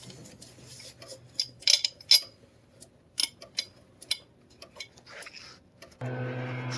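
Scattered sharp metallic clicks and clinks of hand tools and metal parts. About six seconds in, a steady engine hum starts abruptly.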